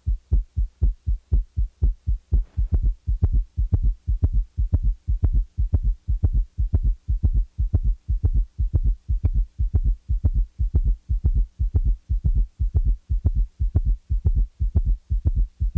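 Heart sounds at a rapid rate with a summation gallop: the third and fourth heart sounds fuse into one loud extra sound midway between the second sound and the next first sound. The result is a fast, regular galloping rhythm of short low thumps.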